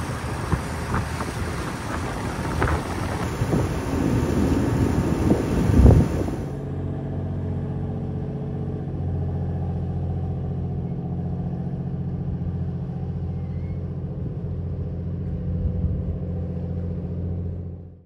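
A small passenger boat's engine runs under rough wind and water noise. After about six and a half seconds the noise drops away, leaving a steady low engine hum that fades out at the end.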